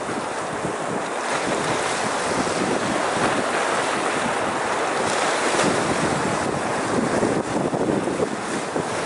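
Small sea waves washing in and breaking over shoreline rocks, a continuous rushing surf that swells and eases, with wind buffeting the microphone.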